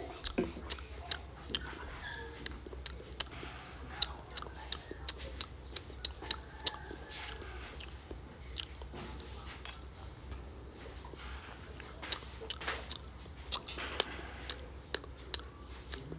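Close-up eating sounds of a man eating Khmer rice noodles in soup with chopsticks: chewing and mouth smacks with frequent sharp clicks, over a steady low hum.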